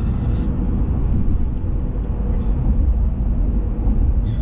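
Motor vehicle driving: a steady, loud, low engine and road rumble with a faint steady hum above it.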